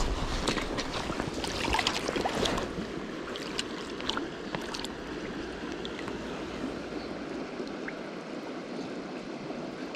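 Footsteps crunching and clicking on loose river gravel over the first few seconds, with low rumbling on the microphone, then the steady rush of a fast-flowing shallow river.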